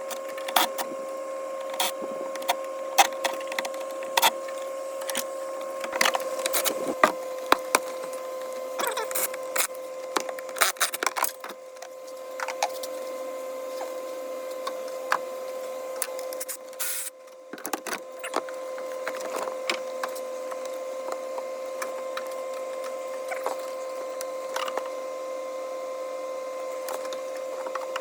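Irregular clicks, clanks and rattles of hand tools and metal parts being handled, most frequent in the first half, over a steady high-pitched hum.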